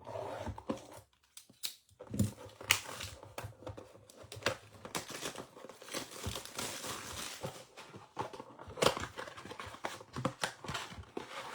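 Plastic wrapping crinkling and tearing as a blaster box of trading cards is opened, with irregular crackles and sharp clicks as the wrapped foil packs are handled.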